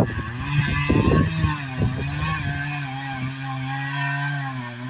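Chainsaw running at a steady, held pitch while cutting through a large pine trunk to fell it.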